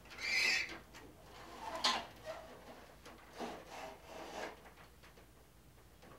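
Hard plastic parts of a 1987 Hasbro G.I. Joe Defiant gantry toy rubbing and scraping against each other as the big section is handled and worked apart. There is a loud scrape at the start, a sharp click about two seconds in, and a few softer scrapes a second or two later.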